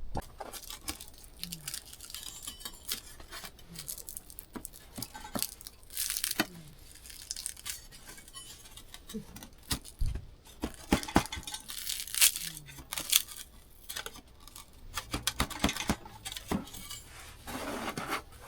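Irregular clinks, taps and rustling of small utensils and packaging being handled.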